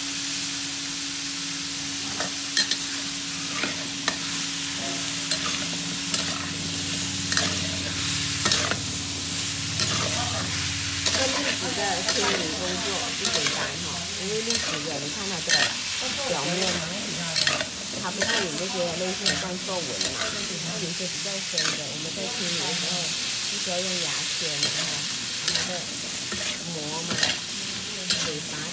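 Chestnuts and garlic being stir-fried in hot oil in a wok: a steady sizzle, with the spatula scraping and knocking against the pan again and again. A low steady hum stops about halfway through.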